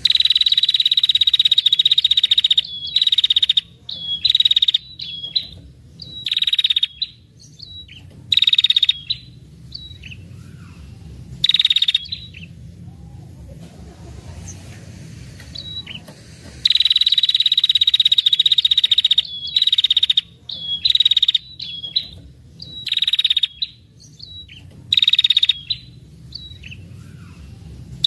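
Female ashy tailorbird giving long, rapid trilling calls, high-pitched and buzzy. The bursts last from half a second to over two seconds and are separated by short single notes and brief pauses.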